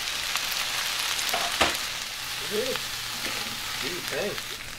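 Diced vegetables and shredded chicken sizzling in butter in a frying pan as they are stirred with a wooden spatula, with a steady hiss and one sharp knock about one and a half seconds in.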